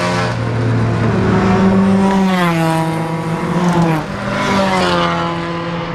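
Engines of several club race cars running along the start-finish straight. One car goes past about two seconds in, its engine note falling as it passes, and another engine rises in pitch near the end.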